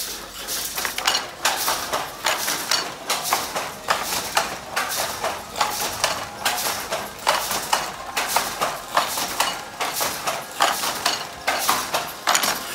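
Wooden foot-treadle floor loom being worked: rapid, irregular wooden knocking and clacking several times a second as the treadles, shafts and beater move.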